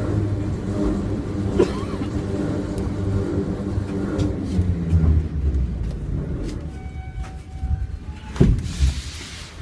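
Metro train running on the rails, a steady low rumble with motor hum that weakens in the second half, with two heavy wheel knocks near the end.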